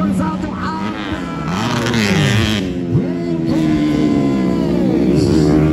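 Motocross bikes revving on a dirt track, their engine pitch rising and falling as they accelerate and back off through the corners.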